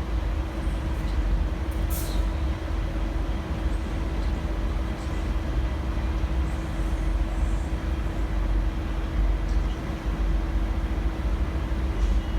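V/Line N class diesel-electric locomotive idling: a steady low rumble with a constant hum.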